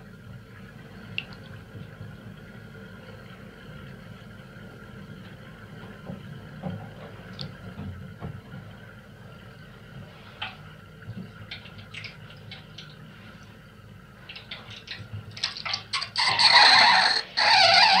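Bath water draining out with the plug pulled: a low steady rumble with a few faint drips and clicks, then about fifteen seconds in it turns loud and ragged as the water goes down the plughole.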